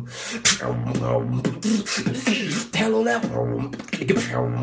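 Beatboxing: sharp vocal percussion hits over a steady low hum, with bending, voice-made melodic notes.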